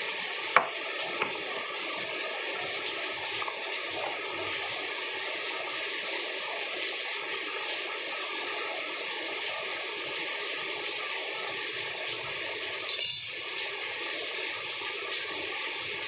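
Steady rain, an even hiss, with a sharp click about half a second in and a brief clink about thirteen seconds in.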